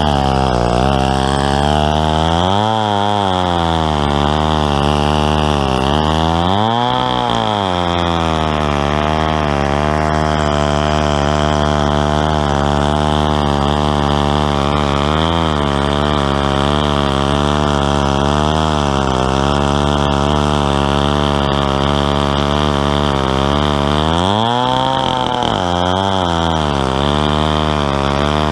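Stihl 090 two-stroke chainsaw running under load in a chainsaw mill, ripping lengthwise through a tulip poplar log. The engine holds a steady pitch, rising briefly three times, about 3 and 7 seconds in and near the end. The owner calls the saw untuned.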